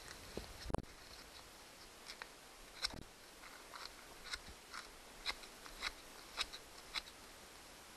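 Gloved hands rubbing a rag over outboard motor wire terminals, cleaning off oil and corrosion: irregular small clicks and crinkles, with a dull knock a little under a second in.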